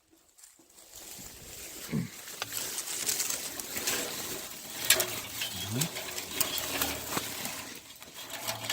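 Dry grass and twigs rustling and crackling as they are handled and laid down as kindling for a campfire, with scattered small snaps and two brief low gliding sounds.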